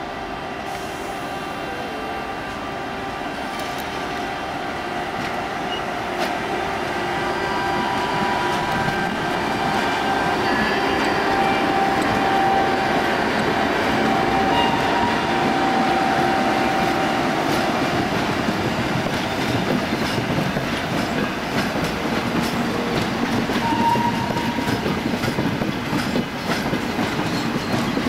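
An ETR 500 high-speed electric train rolls slowly past at close range, its wheels clattering over the station pointwork with some squealing and a steady whine. It grows louder over the first half as the power car draws level, then the trailer cars keep clattering by.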